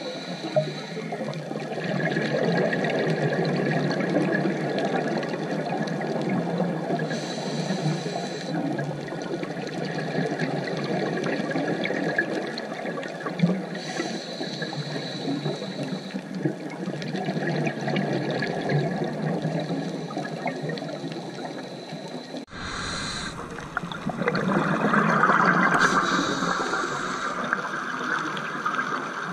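Scuba diving sound recorded underwater: a steady bubbling rush with bursts of regulator exhaust bubbles every several seconds. The sound changes abruptly about two-thirds of the way through.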